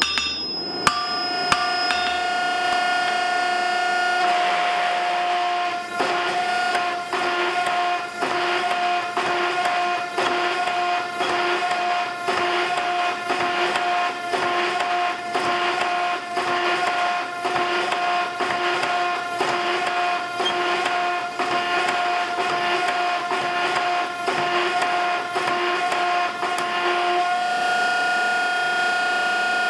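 12-ton hydraulic forging press running with a steady motor hum, after a few hammer blows on an anvil at the start. From about four seconds in it pulses rhythmically, about one stroke a second, as the ram repeatedly presses texture dies into a hot round bar, then settles back to the steady hum near the end.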